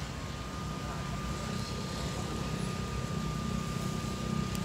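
Small electric motor and propeller of a mini RC foam plane buzzing steadily at one high pitch, over a low rumble that grows slightly louder near the end.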